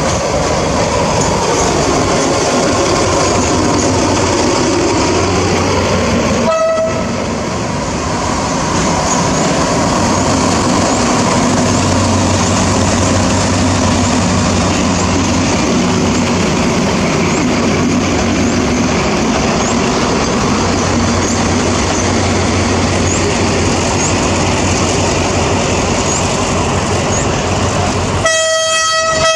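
Alsthom diesel-electric locomotive running steadily as it moves slowly along the tracks. Its horn gives a short toot about a quarter of the way in and a longer blast near the end.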